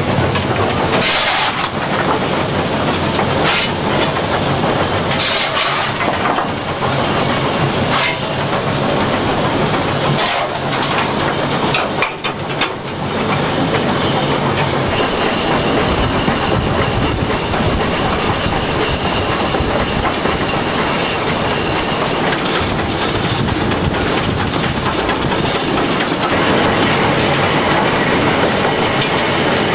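BR Standard Class 2 2-6-0 steam locomotive 78022, fitted with a Giesl ejector, heard from the footplate while running: a continuous din of exhaust, steam hiss and the clatter of wheels on rail joints. The sound grows fuller in the second half.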